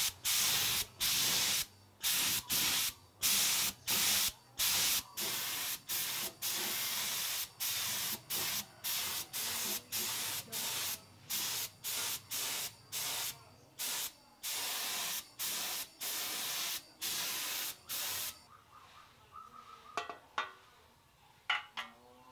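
Compressed-air spray gun spraying clear coat onto a bicycle frame in short repeated bursts of hiss, about one or two a second as the trigger is pulled and released, stopping about eighteen seconds in. A couple of light knocks follow near the end.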